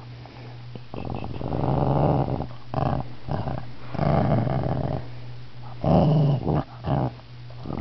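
Shih Tzu growling in repeated bouts, the longest about a second and a half, annoyed at being touched while it naps.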